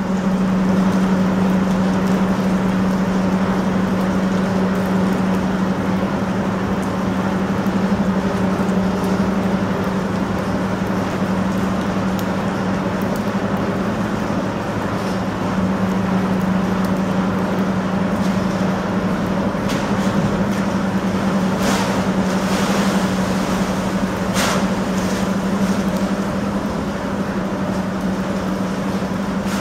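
Steady machinery hum with one strong low tone as the Niederfinow ship lift lowers its steel gate, with water churning underneath. A few brief clicks sound about two-thirds of the way through.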